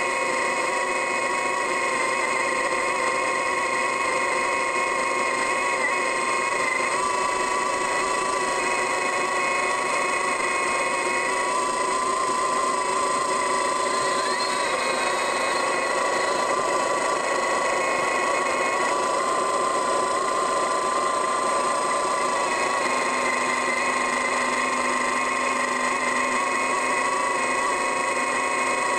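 Trenching machine running steadily, its engine and drive giving a constant high whine that shifts a little in pitch a few times as the load changes.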